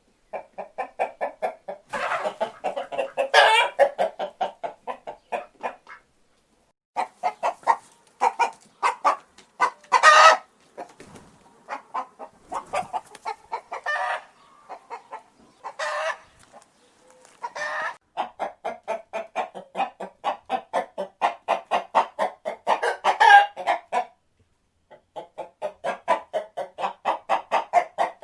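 Chickens clucking in long runs of rapid, repeated short clucks, broken by louder, higher calls about half a dozen times. The sound stops briefly twice.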